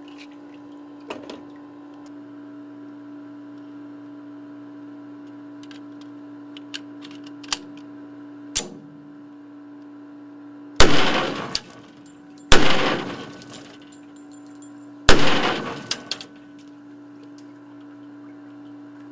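Three semi-automatic pistol shots fired into the steel entry port of a ballistics water tank, each a sharp bang with about a second of ringing decay, spaced under two seconds and then about two and a half seconds apart. Before them, a few small clicks of the pistol being handled over a steady low hum.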